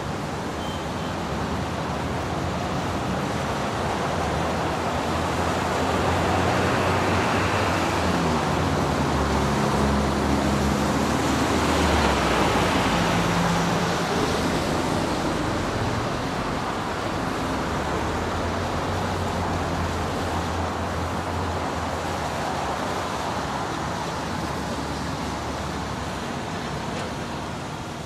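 City side-street traffic on a wet road: passing cars with tyre hiss on wet pavement over a low engine hum. The hiss swells as a vehicle passes close, loudest about twelve seconds in, then eases off and fades near the end.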